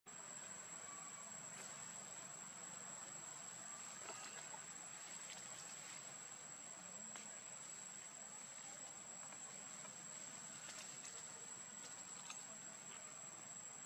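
A faint, steady, high-pitched insect trill, typical of crickets in forest undergrowth, with a few faint scattered rustles and ticks.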